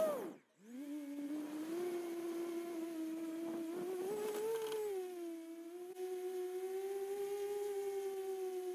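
Motors and propellers of a 7-inch FPV quadcopter whining steadily. The pitch glides up as the motors spool up about a second in, rises briefly around four and a half seconds, then holds level.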